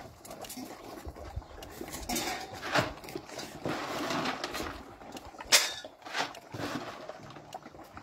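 Beagles moving about on concrete: scattered clicks and scuffs of claws and paws, with a sharper click about five and a half seconds in.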